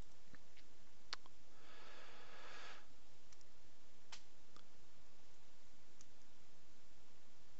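A few soft computer-mouse clicks over a steady background hiss, with a short breathy rush about two seconds in.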